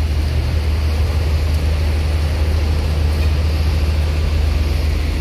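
Mercedes-Benz OH 1626 coach's six-cylinder diesel engine running steadily at low revs, a deep, even rumble, as the bus creeps past. Rain hisses under it.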